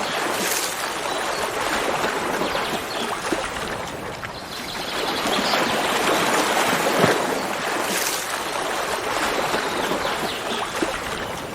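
Running water of a stream: a steady rushing noise with small splashes now and then.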